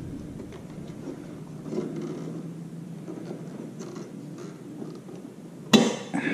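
Quiet scraping and rustling of hands working among plastic and rubber parts behind a motorcycle headlight, with a short loud noise a little before the end.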